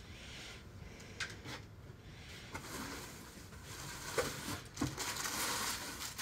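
Faint rustling of clothing and packaging being handled, with a few soft clicks and knocks as items are moved about and taken from a cardboard box.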